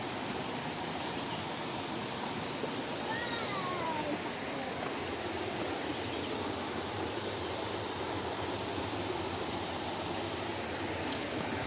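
Steady rush of flowing stream water, with a faint falling call about three seconds in.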